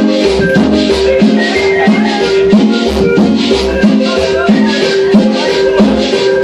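Cumbia sonidera music playing loud, with a steady beat, a bass line and sustained pitched notes over regular rattling strokes.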